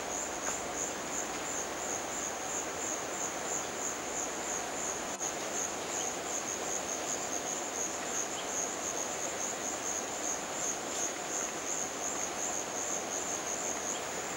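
Insects trilling in a steady, high-pitched chorus that pulses evenly, about four or five pulses a second, over a faint background hiss.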